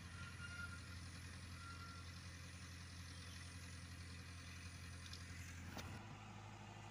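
Steady low hum of a Komatsu PC75US mini excavator's diesel engine running as the machine slews and works. There is a click near the end, and then the engine tone turns abruptly duller.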